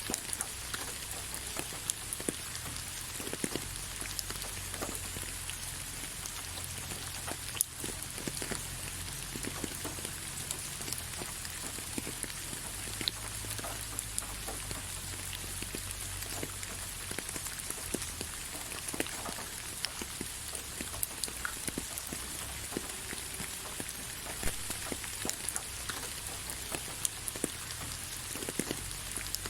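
Steady rain falling on leaves: an even hiss with many separate drop ticks scattered through it.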